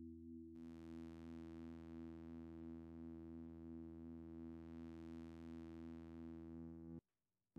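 Abacusynth spinner synthesizer sounding a steady drone of layered tones. About half a second in, a click on a spinner changes its waveform and the tone turns brighter with many more overtones. It cuts out for half a second near the end, then resumes.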